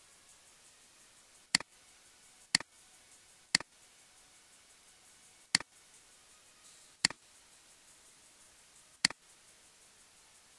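Computer mouse button clicked six times at uneven intervals, each a sharp click with a quick second tick on release, over faint steady hiss.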